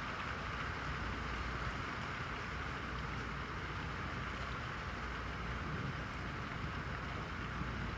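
Steady rain falling in a thunderstorm, a continuous even hiss with no thunderclap.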